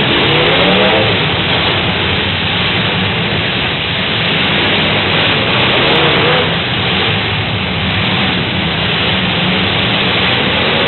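Demolition derby cars' engines running hard over a dense, steady wash of noise, with an engine revving up near the start and again about six seconds in.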